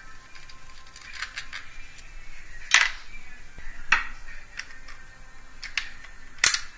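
Hand tools and engine-bay parts being handled: a run of sharp clicks and clacks, loudest about three seconds in and again near the end.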